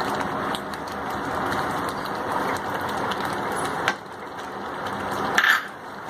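Chicken korma gravy sizzling and bubbling steadily in the pan as fried onion paste goes in, with a sharp knock about four seconds in and a short clatter near the end.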